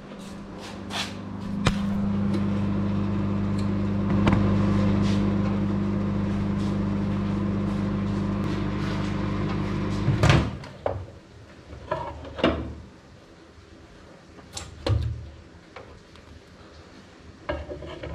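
Microwave oven running with a steady low hum. It starts with a click, runs for about eight seconds, then stops with a loud clunk about ten seconds in. A few knocks and clicks follow, such as a door and handling.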